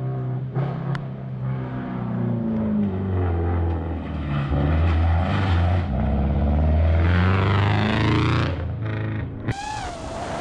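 Rally car's engine revving hard on a gravel stage, its pitch climbing and dropping again and again with gear changes and throttle, loudest as the car comes through the corner. About nine and a half seconds in it cuts off abruptly to a different sound with a wavering high tone.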